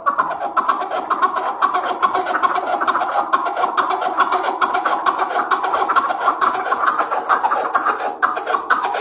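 An Iraqi-type chukar partridge (keklik) calling in a long, continuous run of rapid chuckling notes, both deep and high.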